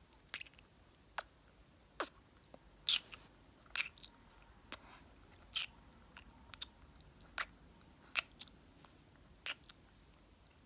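Close-miked mouth sounds: wet lip smacks and kisses, about a dozen sharp pops spaced irregularly, roughly one a second.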